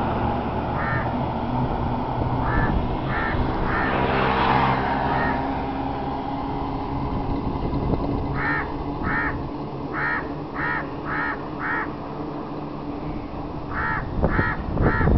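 A crow cawing in short repeated calls, with a run of about six caws roughly half a second apart in the middle and three more near the end. Underneath is a steady low vehicle hum, with a vehicle passing about four seconds in.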